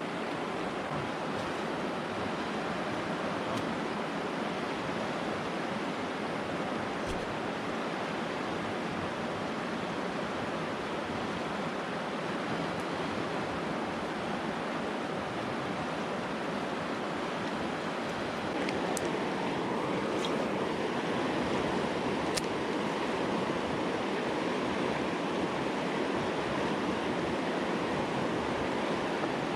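Mountain river current rushing steadily over rocks, growing louder about two-thirds of the way through, with a few faint ticks.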